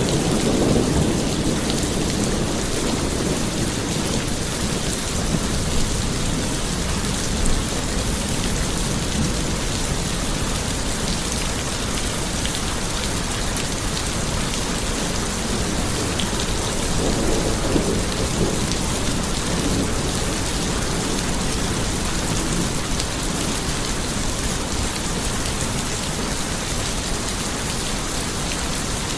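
Steady rain, with a deeper low swell near the start and again a little past the middle.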